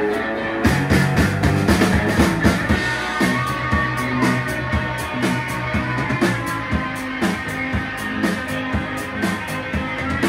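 Live rock band playing an instrumental passage: electric guitars and bass over a drum kit, with evenly repeated cymbal strokes.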